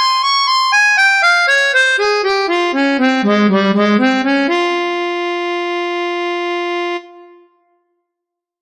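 Synthesized harmonica from notation-software playback playing a Hirajōshi scale run in quick, even single notes. It falls to its lowest notes, climbs back, then holds one long final note that cuts off abruptly about seven seconds in.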